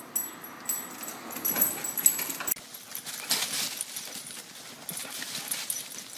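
A small puppy's feet scampering on a hardwood floor as it runs in circles, with sharp clicks. About two and a half seconds in this gives way to a dog's feet scuffling and rustling through dry leaf litter as it circles a tree.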